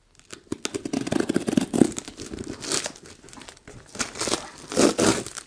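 Clear plastic packaging crinkling and tearing as a cardboard shipping box is opened by hand: a run of crackles and short rasps, loudest about two seconds in and again near the end.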